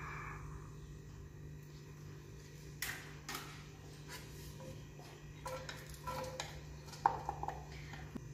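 A few light knocks and clicks of a wooden spatula handled in a wok, and sliced onions tipped in from a glass bowl near the end, over a steady low hum.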